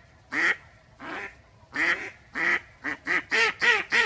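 Live decoy duck quacking: a few separate quacks, then a quicker run of about four quacks a second in the last second or so.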